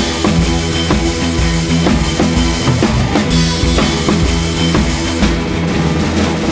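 Background music: a band track with a drum kit keeping a steady beat under sustained held notes.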